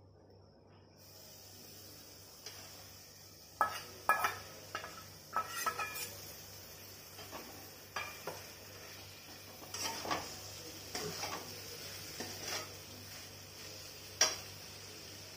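Boiled mushroom pieces going into a hot aluminium kadai of masala, with a faint steady sizzle starting about a second in. Then a steel spatula scrapes and clanks against the pan in irregular strokes as the mushrooms are stirred, the loudest clanks about four seconds in and near the end.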